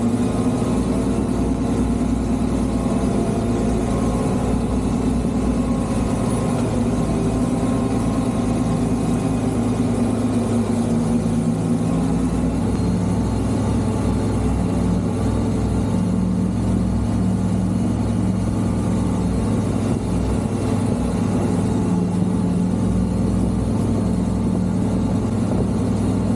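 Fendt tractor's diesel engine running steadily under load as it pulls a loaded lime spreader at spreading speed, a constant low hum. Its pitch shifts slightly about eleven seconds in.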